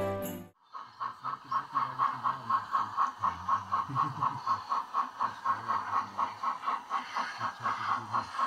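Christmas music with jingle bells fades out in the first half second. Then a G-scale garden model train runs with a steady rhythmic beat about four times a second over a faint low hum.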